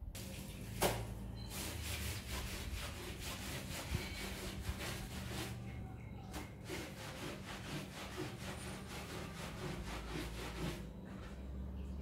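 Wind rumbling and rustling on the microphone, with a steady low hum underneath.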